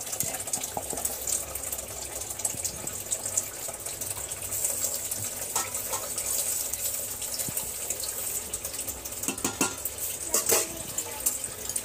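A steel spoon, then a steel spatula, stirring semolina into hot sugared water in a steel pot for halwa: a steady watery swishing with the utensil scraping the pot. A few sharper knocks of metal on the pot come near the end.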